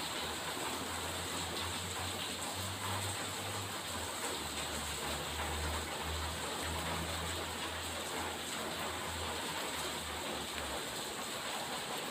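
Steady rain falling, an even hiss that does not let up. A low rumble sits underneath and breaks off near the end.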